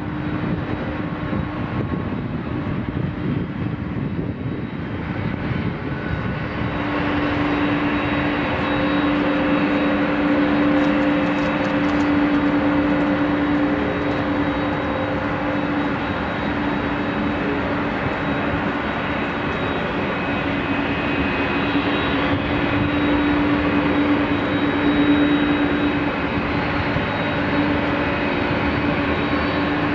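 Boeing 777-200's twin Pratt & Whitney turbofans running at low power as the airliner rolls slowly after landing: a steady hum with a held droning tone. It grows louder about seven seconds in.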